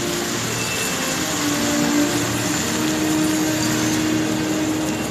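Musical fountain's water jets spraying and splashing down into the pool: a steady rushing hiss, with a faint held low tone beneath it.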